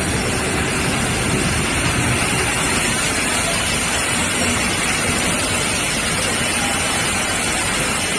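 Four-spindle aluminum-profile CNC drilling and milling machine running: a steady, loud mechanical noise with a faint high whine on top.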